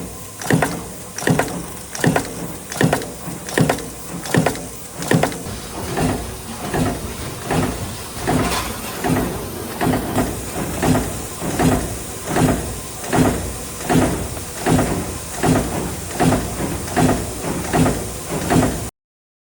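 Punching press running a progressive stamping die, two material strips feeding, with a regular press stroke about every 0.8 seconds and a machine hum between strokes. The sound cuts off suddenly near the end.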